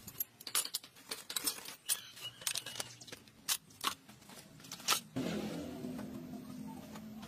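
Metal hand tools clinking and clattering as they are gathered up and dropped into a plastic basket, many quick separate knocks. About five seconds in, a steady low hum begins.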